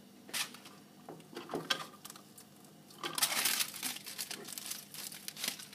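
Tinfoil crinkling and rustling as it is handled, with light clicks and clinks. A few separate clicks come first, then a dense stretch of crinkling from about three seconds in.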